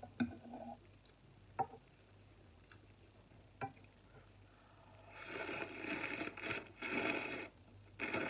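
A person slurping glass noodles out of hot soup: two long, loud slurps in the second half, and a shorter one near the end. They are preceded by a few sharp clicks.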